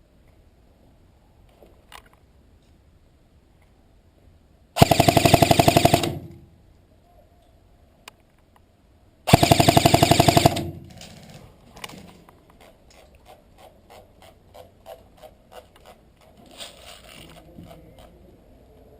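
Airsoft gun firing two full-auto bursts of about a second and a half each, about five and nine seconds in, a fast mechanical rattle. A run of fainter sharp clicks follows.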